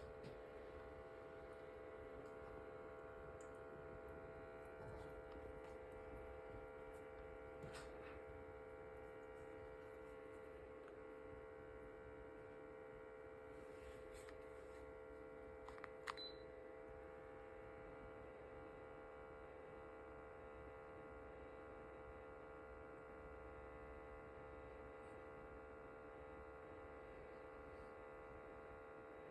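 Ailinke humidifier making a steady, faint hum with several pitched tones stacked above it, unchanging throughout, with a couple of small clicks partway through.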